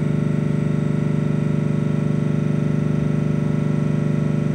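A steady electrical buzz, a dense stack of unchanging tones with a fast, even pulse in its loudness.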